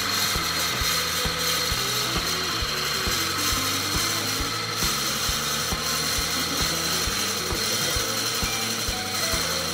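Wood lathe spinning an oak blank while a drill bit held in the tailstock bores into its end grain, a steady mechanical whine with cutting noise. Background music with a steady beat plays along.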